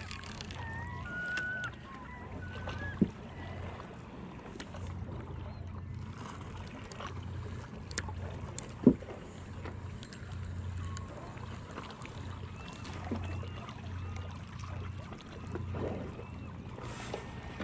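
A low, uneven rumble with faint short chirps scattered through it, and two sharp knocks, the louder one about nine seconds in.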